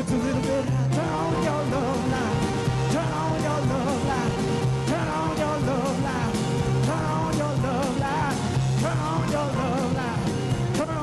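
Live blues band playing a rock-and-roll groove: drums with a steady beat, bass, keyboards and guitar, with a lead line bending and wavering in pitch over the top.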